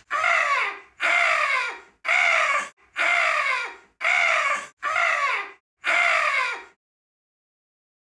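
A man screeching in imitation of an angry cockatoo: seven harsh, loud screeches about one a second, each under a second long and falling in pitch.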